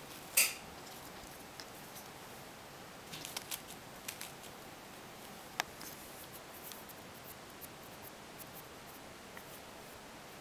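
Quiet room tone with a few faint, scattered clicks and rustles: a louder rustle just after the start and a sharp tick about halfway through.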